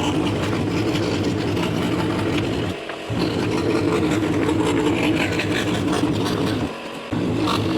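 Electric scroll saw running steadily, its motor and reciprocating blade making an even hum that dips briefly twice, about three seconds in and again near the end.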